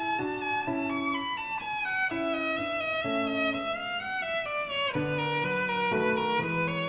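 Background music led by a violin melody moving from note to note, with lower notes joining about five seconds in.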